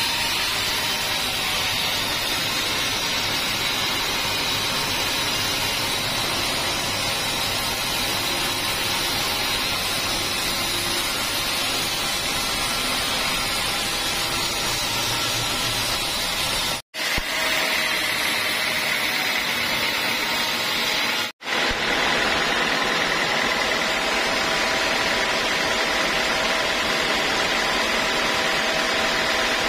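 Large band sawmill running steadily while ripping a teak log into a slab: a continuous motor-and-blade noise with a steady high tone over it. The sound drops out abruptly twice past the middle, and a band saw then runs on with a slightly different tone.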